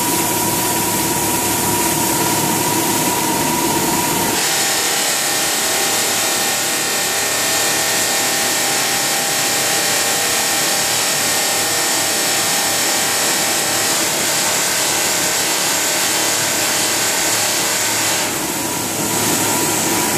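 Multi-station rotary cookware polishing machine running: electric motors and polishing wheels making a loud, continuous mechanical noise with steady whines. About four seconds in the sound changes abruptly, the low hum dropping away and higher-pitched whines taking over, and it shifts again briefly near the end.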